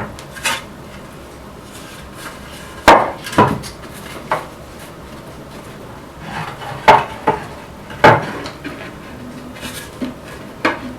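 Wooden knocks and clunks as heavy mahogany slabs are shifted, flipped and set down against each other on the bench, several irregular knocks, some in quick pairs, with short pauses between.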